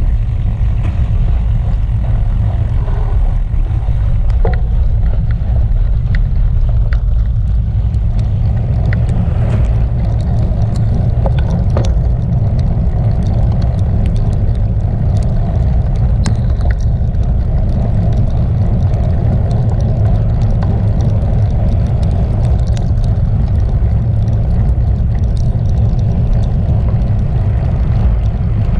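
Steady low rumble of wind and road vibration on a bicycle-mounted camera riding along a wet road, with scattered light ticks throughout.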